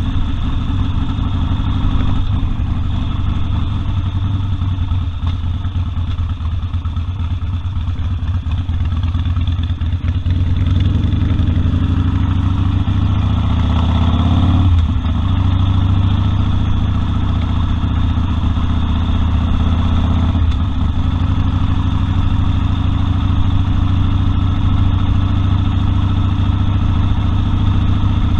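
Harley-Davidson Sportster 1200 Custom's air-cooled V-twin running under way. Its pitch climbs from about ten seconds in, drops sharply at about fifteen seconds as it shifts up a gear, and dips briefly again at about twenty seconds.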